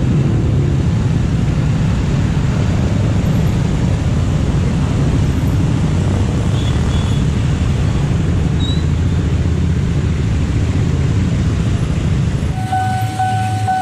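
Heavy road traffic, mostly motorcycles and cars, running across a railway level crossing, a dense steady engine and tyre noise. About a second before the end the sound changes abruptly to a steady electronic tone: the crossing's Nippon Signal warning alarm starting up.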